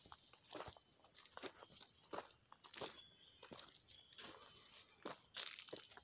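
Footsteps crunching along a gravel track, about two steps a second, over a steady high-pitched drone of tropical insects.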